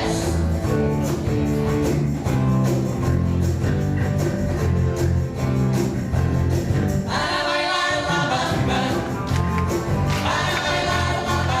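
Live music from a band with a steady bass line. A group of voices comes in singing held notes about seven seconds in, and again near the end.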